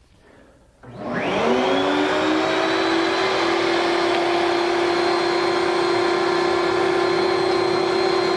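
Table-mounted router starting up, its whine rising to full speed within about a second, then running steadily at high speed as a strip of wood is fed along the fence past the bit.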